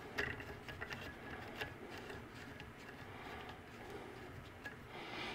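Hand screwdriver driving a thread-locked jack screw into an AR-style rifle handguard: faint, irregular light clicks and ticks.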